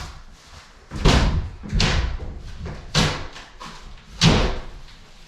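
Heavy blows struck against a wall, about four of them roughly a second apart, each a sharp knock with a short ring-out: demolition of a drywall-covered staircase wall.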